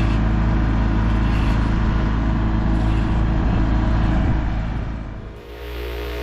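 A heavy engine running steadily with a deep, even drone. It eases off about four to five seconds in, then a steadier, higher hum follows.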